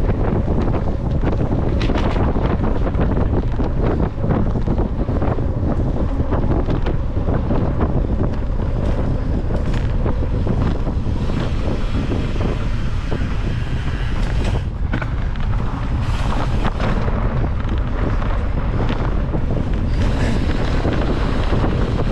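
Wind buffeting the microphone of a camera on a mountain bike ridden fast over dirt singletrack, with the rattle of the bike over the trail and scattered sharp clicks and knocks.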